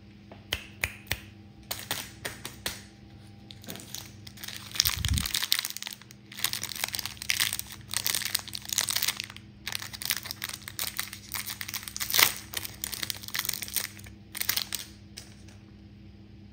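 Plastic chocolate-bar wrapper crinkling and crackling in the fingers as it is peeled open, in bursts of sharp crackles that stop shortly before the end. A dull low thump sounds about five seconds in.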